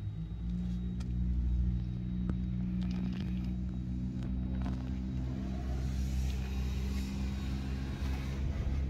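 Toyota Land Cruiser's 4.7-litre V8 engine idling with a steady low rumble, growing slightly louder in the first second or two.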